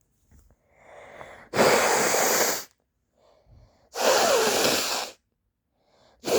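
A woman blowing her nose hard into a handkerchief: three forceful blows, each about a second long, with short pauses between, the last beginning near the end.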